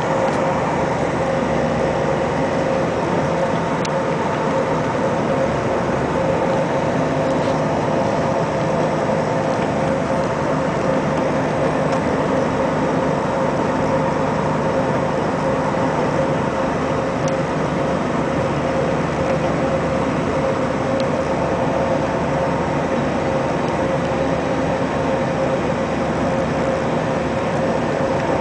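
A bus's engine and road noise heard from inside the moving bus: a steady drone with a few held tones, unchanging throughout.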